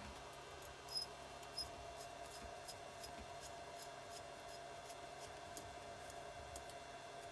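Small metallic clicks and taps as cylinder dome nuts are fitted onto the studs of a Keeway TX125 engine, with two sharper ringing clinks about a second in, over a faint steady hum.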